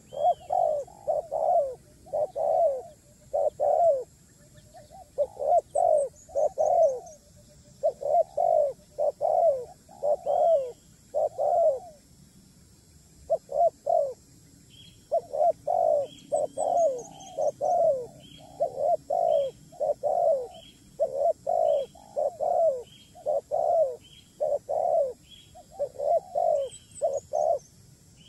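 A bird calling in a rapid series of short, low cooing notes, grouped in twos to fours with short breaks, alongside thin high chirps from another bird.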